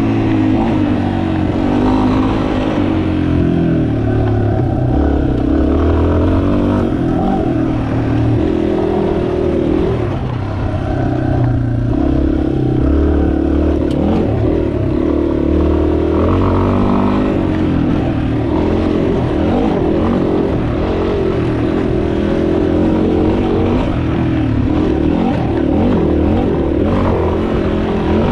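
2019 Yamaha XT250's air-cooled single-cylinder four-stroke engine running as the bike is ridden along a dirt trail, its revs rising and falling with the throttle.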